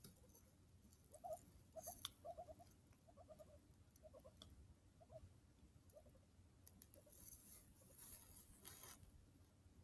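Guinea pig making faint, short squeaks in quick clusters of two to four, repeated over several seconds, followed by a soft rustling near the end.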